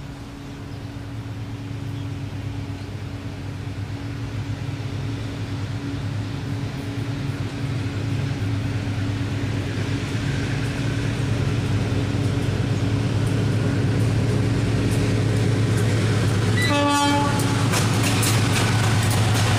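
GE BB36-7 diesel-electric locomotive hauling a loaded freight train, its engine drone growing steadily louder as it approaches. A short horn blast about seventeen seconds in, then wheel clicks over the rail joints as the locomotive passes close.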